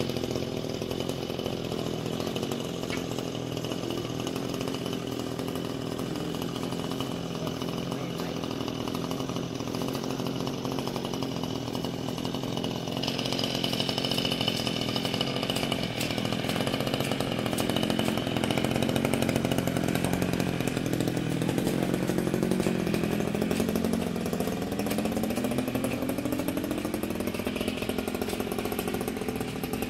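Small petrol engine of a handheld garden power tool running continuously, its pitch rising and falling with the throttle in the second half as it cuts. The sound changes abruptly about 13 seconds in.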